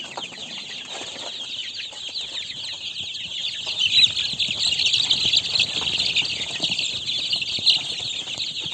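A crowded flock of young chicken chicks peeping continuously. Many high peeps overlap into one constant chatter, which grows louder about four seconds in.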